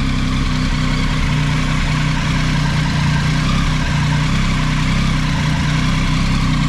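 Triumph Tiger 800's three-cylinder engine idling steadily, run after an oil change so the fresh oil circulates before the level is rechecked.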